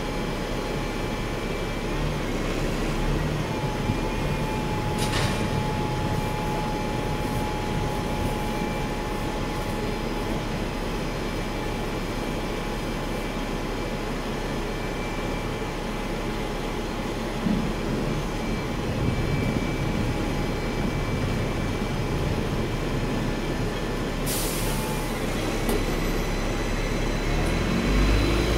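Steady street-traffic rumble beside an idling double-decker bus, with a thin steady hum. There is a short burst of air hiss late on, and near the end a motor whine rises as vehicles pull away.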